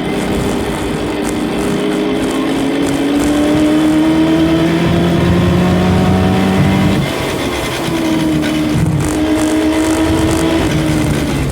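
Ford Mustang engine under hard acceleration, pitch climbing steadily, then dropping sharply at an upshift about seven seconds in, climbing again and dropping once more near the end.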